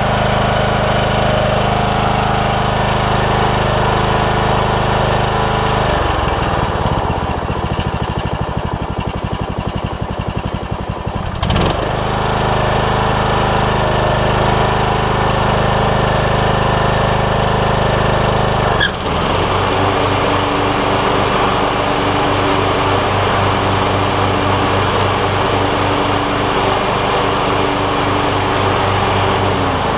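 Troy-Bilt Pony riding mower's replacement engine running steadily. Its note changes a few times, with a short click about eleven and a half seconds in and a clear shift in the engine note about nineteen seconds in.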